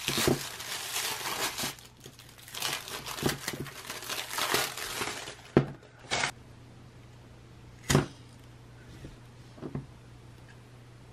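Thin plastic shrink-wrap crinkling and tearing as it is peeled off a pillar candle, for about five seconds. Then a few sharp knocks as the candle is handled and set down on the desk, and a couple of light clicks near the end as a lighter is struck.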